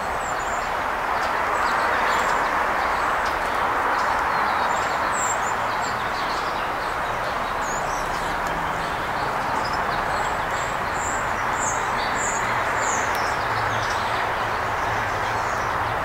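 Small birds giving short, high chirps, a couple about a third of the way in and a quick run of them later on, over a steady background noise.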